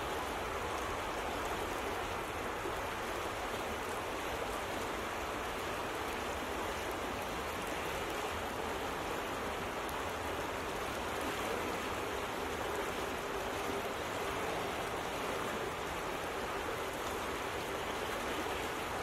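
Fast-flowing river current swirling in eddies, a steady, even rushing of moving water.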